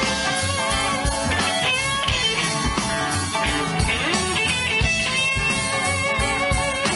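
Live blues band playing: an electric guitar leads with bent, sliding notes over a steady low drum and bass beat.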